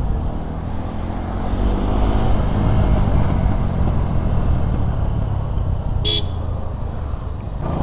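A motorcycle engine running under the rush of riding wind, revving up as the bike accelerates over the first few seconds. A short vehicle horn toot sounds about six seconds in.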